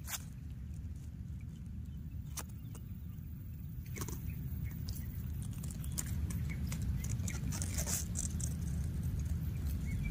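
Steady low wind rumble on the microphone, with scattered clicks and rustles of leaves close by, getting louder about six seconds in.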